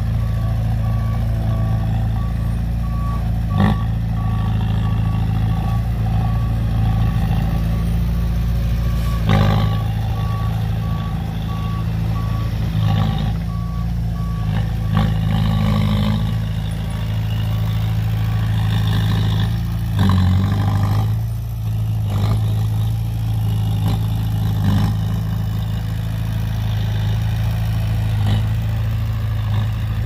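Bulldozer and dump truck diesel engines running steadily, with a reversing alarm beeping in a regular string that stops about halfway through. A few knocks and clanks come at intervals.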